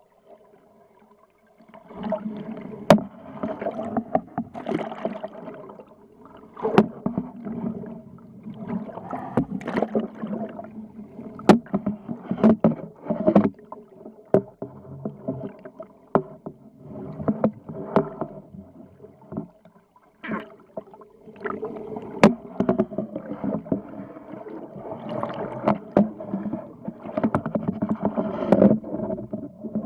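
Water rushing and knocking past an underwater camera, with many sharp clicks, starting about two seconds in. Beneath it runs a steady low hum of several tones, typical of a boat's engine heard through the water.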